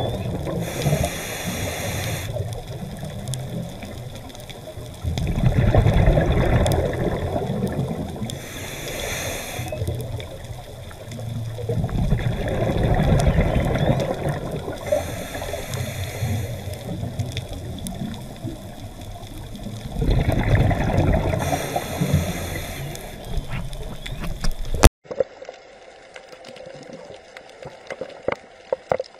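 Scuba diver breathing through a regulator: a short hiss of inhalation, then a louder gush of exhaled bubbles, repeating about every seven seconds. About 25 seconds in it cuts off abruptly to a much quieter underwater background with scattered faint clicks.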